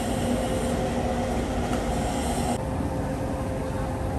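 Steady mechanical rumble with a constant hum running under it. About two and a half seconds in the sound turns abruptly duller.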